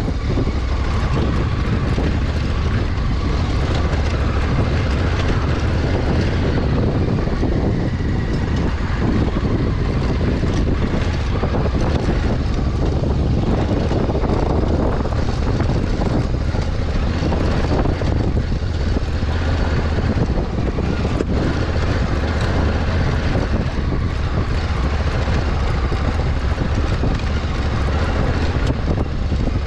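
Honda Africa Twin 1100's parallel-twin engine running steadily as the motorcycle rides over rough ground, with wind rumbling on the microphone.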